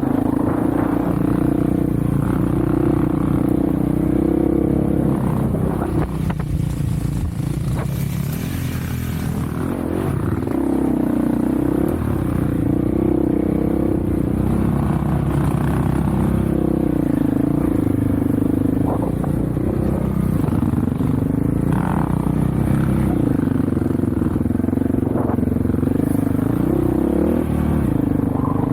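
Off-road vehicle engine running under way, its pitch rising and falling with the throttle, easing off for a few seconds about a quarter of the way in.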